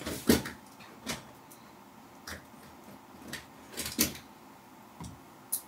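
Paper bag crinkling and rustling in short, scattered bursts, about seven in a few seconds, as cats move in and against it.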